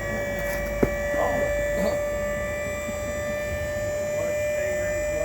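A steady electrical hum with a whine held at one pitch, and a single sharp click a little under a second in.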